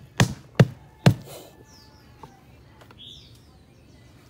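Three sharp hammer knocks in the first second or so, then a few short, falling bird chirps.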